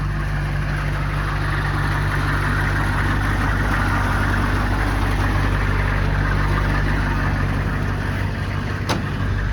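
Vehicle engine idling steadily, with a single sharp click near the end.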